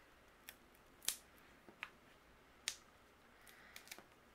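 Faint, scattered small clicks and taps of fingers handling paper die-cut trees and adhesive foam squares, peeling the foam squares' backing and pressing them on. About six short clicks, the loudest about a second in.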